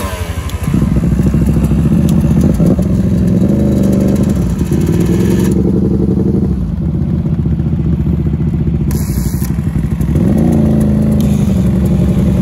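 Dirt bike engine pulling hard from a launch, its pitch climbing and dropping back several times as it shifts up through the gears.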